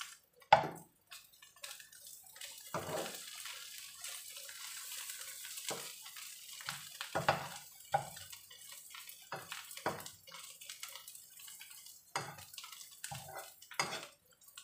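Wooden spatula scraping and knocking against a nonstick wok while shrimp stir-fry, the strokes coming irregularly about once a second, loudest about half a second in. A light sizzle of hot oil runs underneath, most plainly in the first half.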